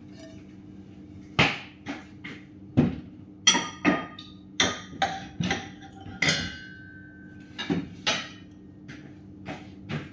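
Dishes and glass bakeware knocking and clinking as they are handled and set down, about a dozen sharp knocks in quick succession, one ringing briefly about six seconds in.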